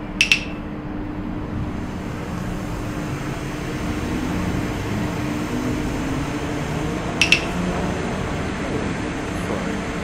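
Steady city street noise with a low, even hum, like traffic and air-conditioning units outside the shops. Two short, sharp double clicks with a bright ring cut through it, one just after the start and another about seven seconds in.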